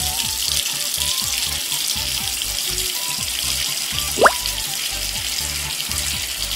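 Bath tap running full into a bathtub, a steady splashing hiss of water filling the bath, over background music. A short rising whistle sounds about four seconds in.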